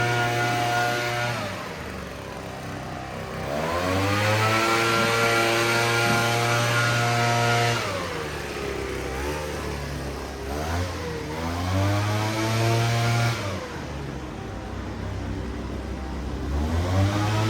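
Gasoline lawn mower engine running, its pitch dropping and then climbing back up three times as the engine speed falls and recovers.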